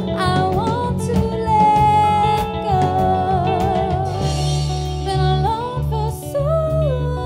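A woman singing a dance song live into a microphone, holding long notes and sliding between them, over a backing band with a deep bass line and a steady percussive beat.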